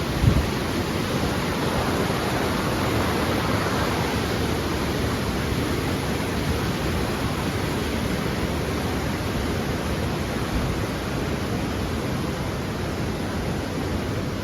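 Mountain river swollen with snowmelt, rushing steadily.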